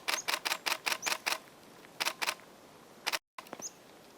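Camera shutter firing in a rapid continuous burst, about six frames a second for a second and a half. Two more shots follow about two seconds in.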